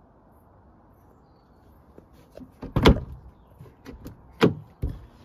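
The cab door of a 1997 VW Caddy pickup being opened: a run of small clicks and knocks with two loud clunks about a second and a half apart, and a duller thud just after the second.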